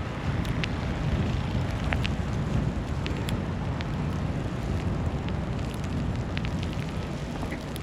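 Snowstorm street ambience: a steady low rumble under a hiss, with scattered faint ticks and no pitched sound.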